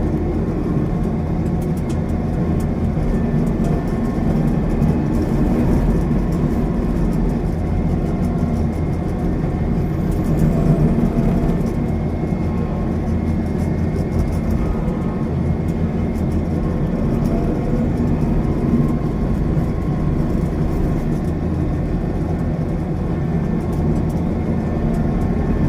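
Rice combine harvester's engine running steadily under load, a continuous low mechanical drone.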